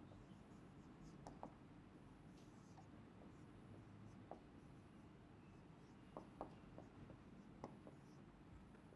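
Faint marker pen writing on a whiteboard: soft strokes with a few small taps and ticks, over quiet room tone.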